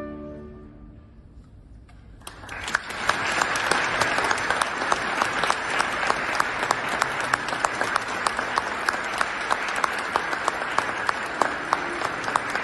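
The chamber orchestra's final held chord with oboe dies away in the church's reverberation. About two seconds in, an audience breaks into steady applause.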